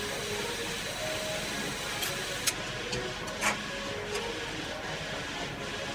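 Steady hiss of a lit butane torch burning, with a sharp click about halfway through and another a second later as small parts and tools are handled on the bench.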